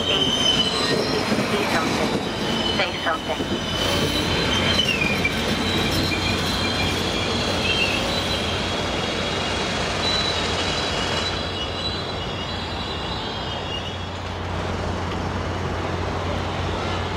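Amtrak Superliner passenger cars rolling past and away, their wheels squealing in high, wavering tones over the rumble and clatter of the train. The squeal stops about two-thirds of the way through, leaving a steady low rumble.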